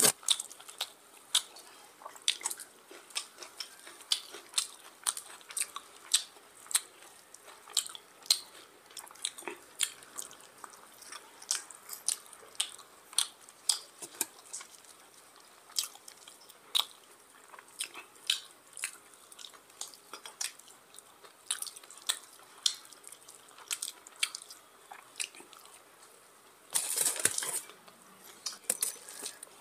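Close-miked eating by hand: mouth smacking and chewing with wet squishing of curry-soaked rice and meat, heard as many short sharp clicks every second or so. Near the end comes a louder noisy patch lasting about a second.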